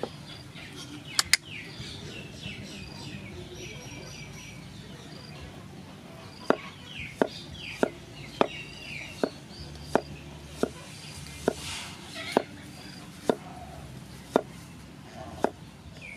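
Small birds chirping outdoors, with short quick high chirps scattered throughout. From about halfway on, a series of sharp clicks or knocks comes roughly once a second, with two louder ones a little over a second in.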